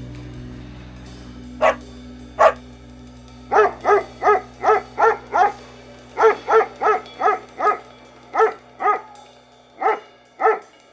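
A dog barking: two single barks, then quick runs of five or six sharp barks at about three a second, then barks in pairs. A held music chord fades away underneath.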